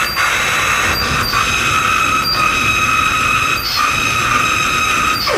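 Harsh noise music played live on effects pedals and electronics: a loud, dense wall of distorted noise with sustained high screeching tones, broken by brief dropouts about five times.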